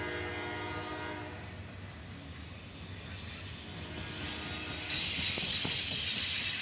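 Freight cars rolling past on the rails with a steady low rumble. A distant locomotive horn holds a chord and fades out about a second and a half in. A high-pitched wheel squeal then builds, loudest in the last second and a half.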